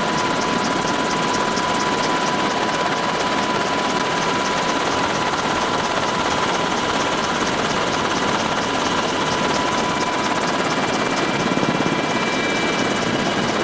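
UH-60 Black Hawk helicopter in flight, heard from inside the cabin: a loud, steady rotor and turbine drone with a constant whine and a fast, regular beat.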